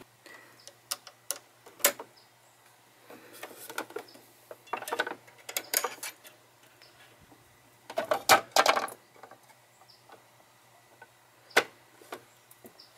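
Small metal clicks and clinks as a Singer Quantum Stylus presser foot and its clamp-on attachment are loosened from the needle-bar shank and lifted off. The handling comes in scattered bursts, the loudest a cluster of clinks about eight seconds in, followed by a single sharp click near the end.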